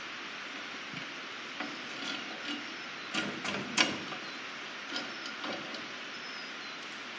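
Scattered light clicks and clinks of metal parts being handled while a closing wheel assembly is fitted to a planter row unit. The loudest cluster comes about three to four seconds in.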